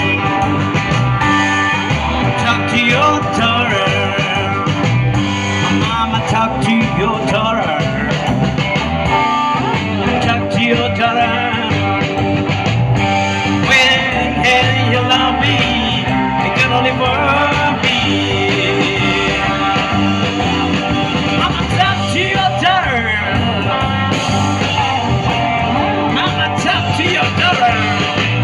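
Blues band playing live: electric guitar lead over bass and drums, in a rock-and-roll blues style.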